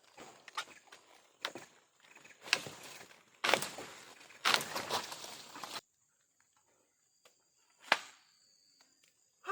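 A series of sharp knocks, about one a second, each trailing off briefly, then a sudden drop to near silence with one more knock near the end.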